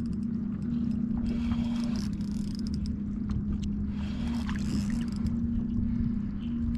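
A steady low mechanical hum with a few brief breaks, over a constant low rumble.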